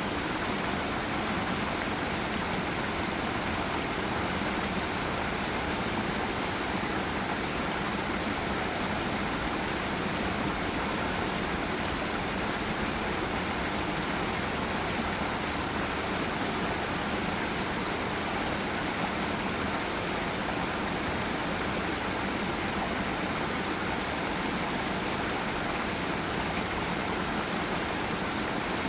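Forest river water rushing over a small waterfall: a steady, even roar of flowing water with no change.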